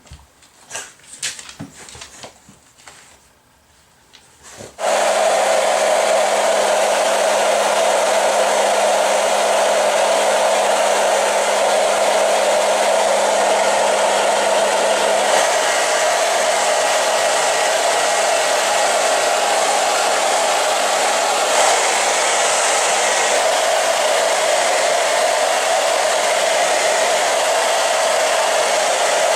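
A handheld blow dryer switches on about five seconds in and then runs steadily, an even rush of air with a low hum under it. A few soft clicks and rustles come before it starts.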